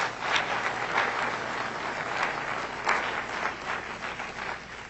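Audience applauding: many hands clapping together in a dense patter that begins to die away in the last couple of seconds.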